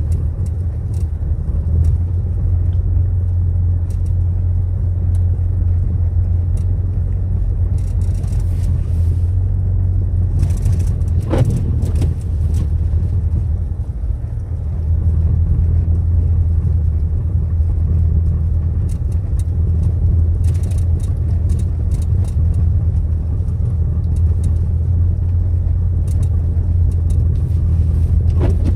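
Car driving: a steady low rumble of engine and road noise, easing briefly about halfway through, with a few faint clicks.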